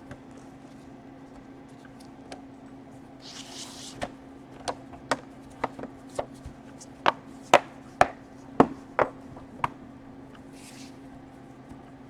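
Sharp plastic clicks and taps, about a dozen over some six seconds, as a laptop's plastic casing is pressed and test-fitted over the power jack, with two short rustles. A steady low hum runs underneath.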